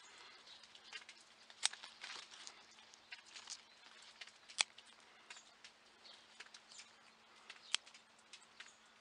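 Hand scissors snipping grapevine tendrils off the vine: three sharp snips about three seconds apart, with faint rustling of leaves and light ticking between them.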